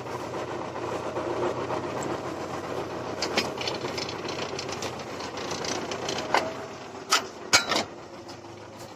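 Sipma Z224/1 square baler running with a steady rhythmic mechanical clatter, a patter of clicks in the middle and a few sharp metal knocks in the second half. The plunger has a knock that the owner cannot yet explain and suspects may be a bearing or the ratchet clutch.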